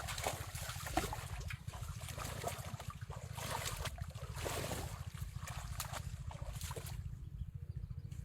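Floodwater sloshing and splashing, with scattered splashes and clicks, over a steady low, rapidly pulsing rumble. The splashing dies down near the end.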